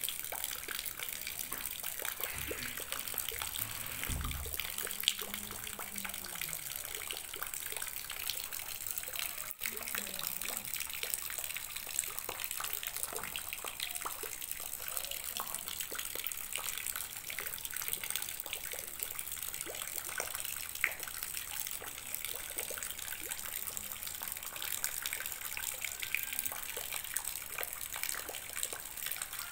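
A steady stream of rainwater pouring into a plastic tub of water, splashing continuously.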